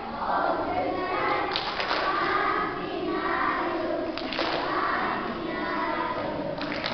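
Children's choir singing together, with a few sharp thumps or claps about one and a half, four and six and a half seconds in.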